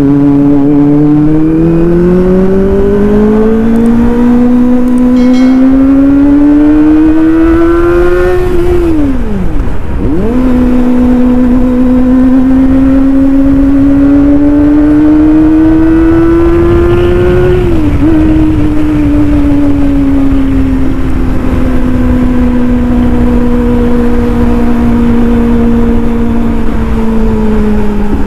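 Kawasaki ZX-25R's 250 cc inline-four running through an aftermarket Austin Racing exhaust under way. The revs climb steadily, then dip sharply and pick up lower about nine seconds in, as on an upshift. They climb again, drop a little near eighteen seconds as on another shift, and then ease off slowly.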